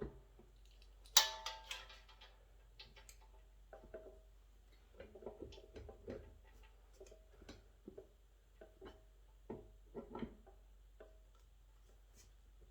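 Scattered knocks and taps as a rubber plucker finger is worked into its notched hole in the YardBird chicken plucker's feather plate, some taps followed by a short ring. The loudest knock comes about a second in.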